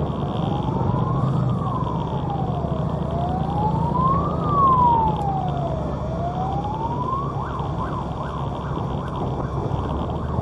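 A siren wailing, its pitch sweeping slowly up and down about every three seconds, then switching to a few short quick yelps about three-quarters of the way through. The steady hum of motorbike engines and road noise runs underneath.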